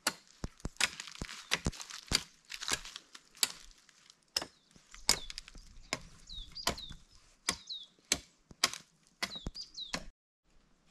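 Wood being chopped and cracked while branches and poles are cut for a shelter: a run of sharp, irregular strikes, roughly one or two a second. In the second half, several strikes are followed by brief high, falling chirps.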